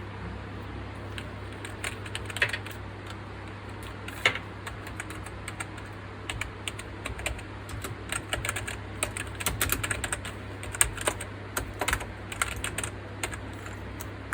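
Keys of a CosmicByte Dragon Fly membrane keyboard being pressed and typed on in irregular clicks, scattered at first and quicker and denser from about eight seconds in, over a steady low hum.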